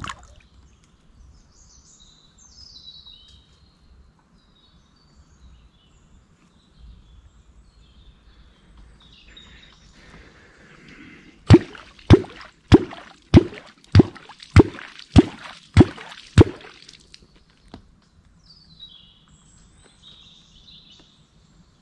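A run of nine sharp, hollow knocks at an even pace, about two thirds of a second apart, over faint lapping water.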